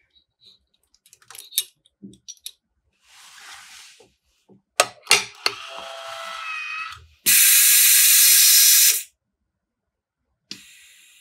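Witschi Proofmaster S watch water-resistance tester in use: light clicks as the watch is seated in the test chamber, a clunk as the lid is shut about five seconds in, then a loud hiss of air lasting about two seconds as the chamber is pressurized for the test.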